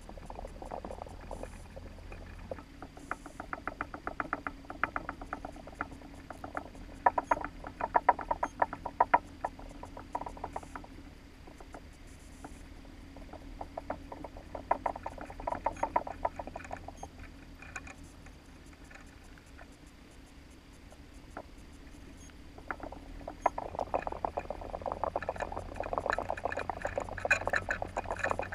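Rapid underwater clicking and crackling inside a towed trawl net, coming in spells of several seconds and thickening near the end, over a steady low rumble.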